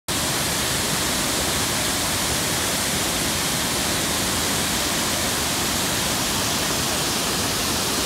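A large waterfall pouring steadily over a wide rock ledge into the river below: an even, unbroken rush of falling water.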